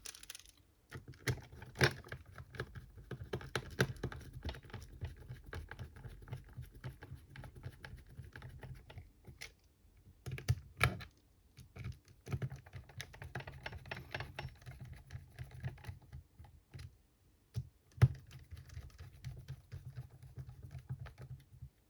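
Light clicks and taps of small plastic and metal parts being handled as battery cells are fitted into a cordless screwdriver's plastic casing, with a few louder knocks now and then.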